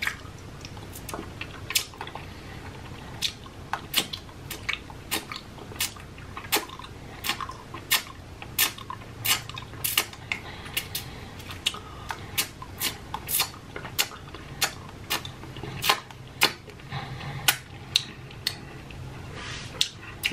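Close-miked mouth sounds of sucking and licking a candy cane: wet smacking clicks at about two a second.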